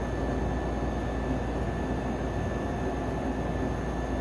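Steady low rumble of a ventilation fan running, with a faint steady high whine over it.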